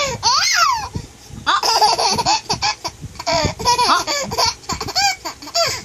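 Baby laughing hard: a high squeal that rises and falls about half a second in, then a string of short, high-pitched giggles.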